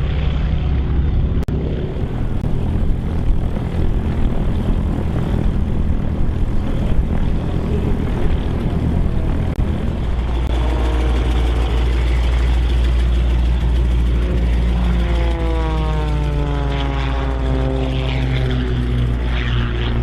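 Single-engine propeller airplanes at full power: a prop plane on its takeoff run, then a steady engine drone, and in the last few seconds a propeller plane passing by with its engine pitch falling.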